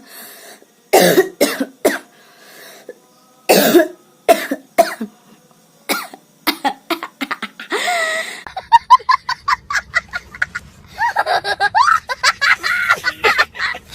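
A woman coughing in a series of sharp, dry bursts, then about halfway through breaking into rapid, pulsing laughter mixed with more coughs. Her laughing sets off the tickly, dry cough.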